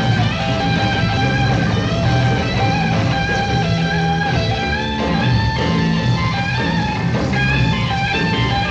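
Live hard-rock band playing: electric guitar lead of held, bending notes over bass guitar and drums.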